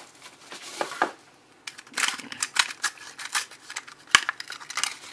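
Plastic blister pack of a Hot Wheels die-cast car crackling and clicking in the hands as it is broken open and the car worked free. A rustle near the start, then a run of crisp, sharp crinkles.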